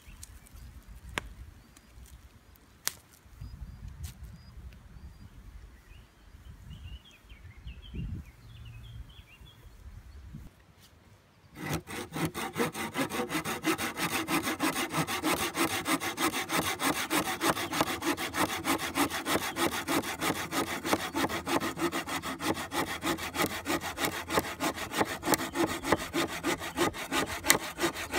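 A small hand saw cutting through a dry, barkless branch in quick, even back-and-forth strokes. It starts suddenly about twelve seconds in, after a quiet stretch with a few faint high chirps and clicks.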